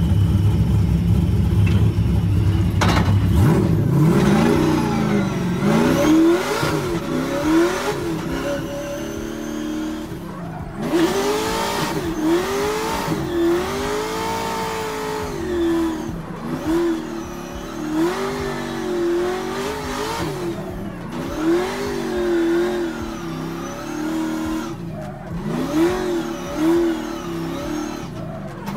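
Pro drift car's engine heard from inside the cabin on a ride-along. It gives a deep rumble for the first few seconds, then revs up and down over and over, about once a second, with tyre noise underneath.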